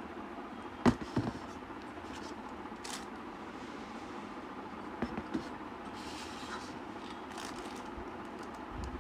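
A few sharp knocks and clicks as a stainless steel pressure cooker body is handled and turned over in the hand, two about a second in and a short cluster around five seconds in, over a steady background hum.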